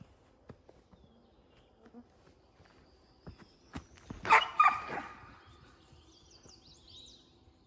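A dog barks, a short cluster of loud barks about four seconds in, among scattered light clicks. Faint high bird chirps follow near the end.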